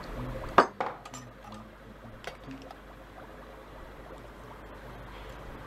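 A sharp metallic snap as a tin of canned pineapple is handled and opened, then a few light clinks of a fork against the tin.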